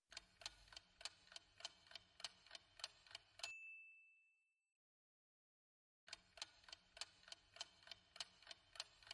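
Countdown timer sound effect: quiet clock ticks, about three a second, for about three seconds, ending in a short high ding as the answer is revealed. After a couple of seconds of silence the ticking starts again.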